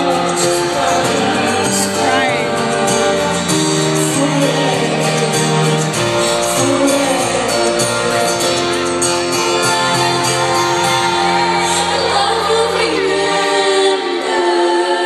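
Live pop ballad: a female singer holds long sung notes over a band, heard through the arena's sound system and recorded from the seats. The deep bass drops out near the end.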